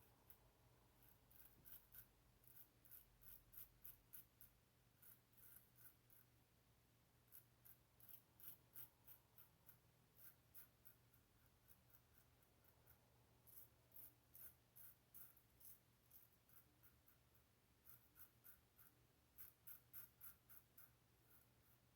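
Above the Tie R1 safety razor with a Treet Platinum blade scraping stubble on the chin during a final cleanup pass. Faint, short scratchy strokes come in quick runs of several a second, with brief pauses between runs.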